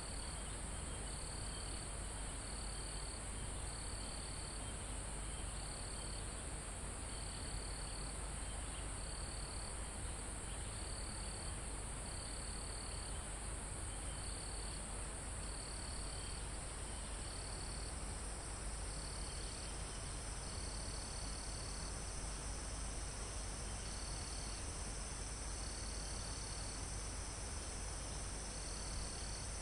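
Night insect chorus of crickets: one continuous high-pitched drone, with a lower chirping in short trills about once a second, over a steady background rush.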